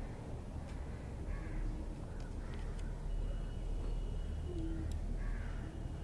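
Crows cawing faintly several times against a steady low background rumble.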